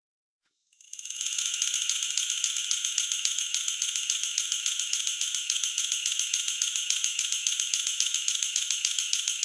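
Synthetic barcode tunnel scanner effect: a fast, steady, high-pitched rattling tick train that starts about a second in.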